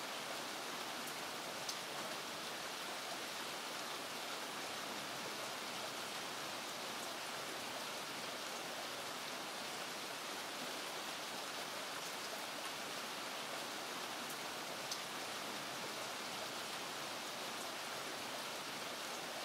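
Medium rain falling steadily in an alley, an even hiss with a couple of louder single drops standing out.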